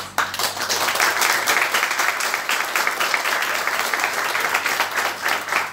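A small group of people applauding, with many hands clapping at once. The clapping starts suddenly and runs on steadily.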